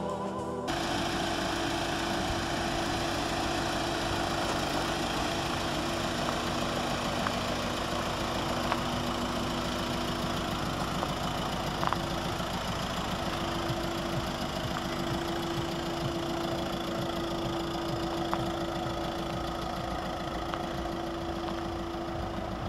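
Diesel engine idling steadily with a light clatter, likely the VW Caddy's four-cylinder 1.9 TDI.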